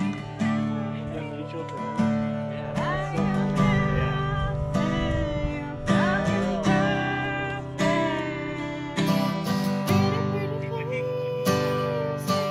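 Background music: strummed acoustic guitar chords with a melody line over them.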